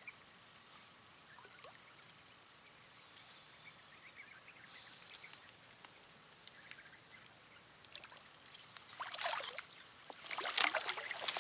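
Insects shrilling: a steady high thin tone with some pulsing. About nine seconds in, and again near the end, come louder bursts of rustling noise.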